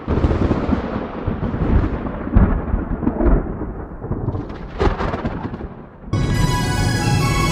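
Thunder rumbling for about six seconds, with a couple of sharper cracks partway through. Music with sustained tones cuts in abruptly near the end.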